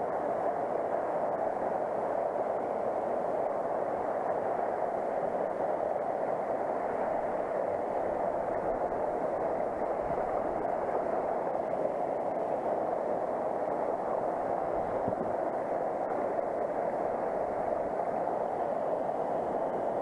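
Steady rushing of a small waterfall and the creek water flowing over rocks.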